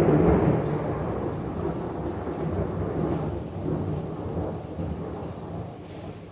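Thunder: a very loud rumble at its peak as it begins, rolling on and slowly dying away over several seconds.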